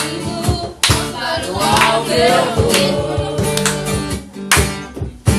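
Worship song played live on strummed acoustic guitar and cajon, with voices singing a wavering melody over the steady chords.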